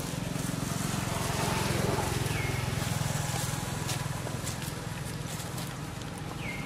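A low, steady engine hum, likely a passing motor vehicle, that swells to its loudest about two seconds in and then eases off. A bird gives a short chirp a little past two seconds in and again near the end.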